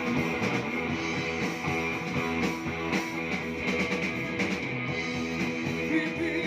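Live band music: an instrumental passage with guitar and drums playing a repeating riff over a steady beat, with no singing yet.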